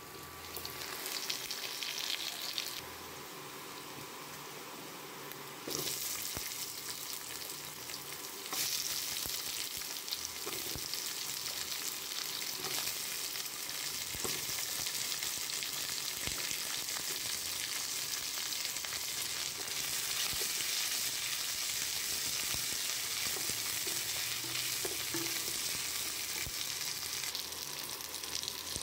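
Shallots, garlic cloves and green chillies sizzling in hot oil in a non-stick kadai, the sizzle stepping up louder about six seconds in and again near nine seconds, with a spatula stirring and now and then tapping the pan.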